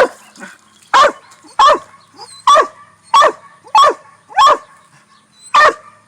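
Original Mountain Cur barking at a treed squirrel: about eight barks at a steady pace, each dropping in pitch. This is its tree bark, the sign that it has a squirrel treed.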